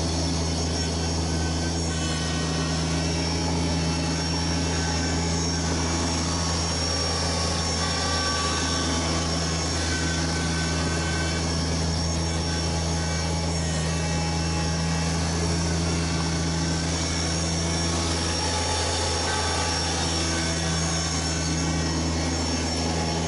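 Kubota BX1870 subcompact tractor's diesel engine running steadily, a constant low hum with no change in pitch.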